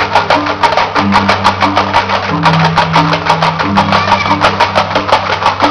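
Balinese performance music: fast, even percussive clicking over a low melodic figure that repeats about every second and a bit.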